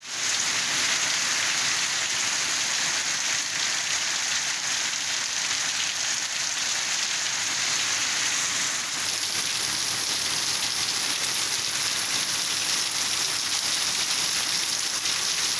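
Steady rain falling: an even, dense hiss with no breaks.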